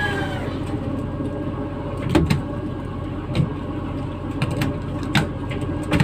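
Steady low drone of a fishing boat's machinery during brailing, with several sharp knocks along the way.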